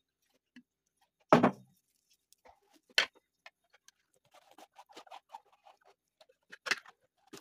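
A yellow plastic screw lid being fitted and twisted onto a large plastic pickle jug. There is a thud, then a sharp click, then a run of small plastic clicks and scrapes as the cap is turned, and another sharp knock near the end.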